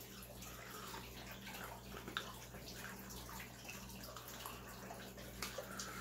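Faint steady trickle of water from an aquarium filter, with a low steady hum. Twice, a soft short sound comes as tea is sipped from a small cup.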